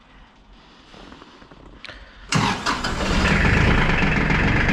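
Iseki TLE3400 compact tractor's diesel engine starting from cold: a faint click, then about halfway through the engine fires suddenly, stumbles briefly and settles into a steady, evenly pulsing idle.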